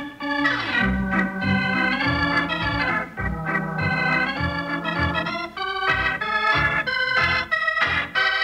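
Organ music playing the closing bridge of a radio drama: a run of chords that change every half second to a second over a held bass, ending on a sustained chord.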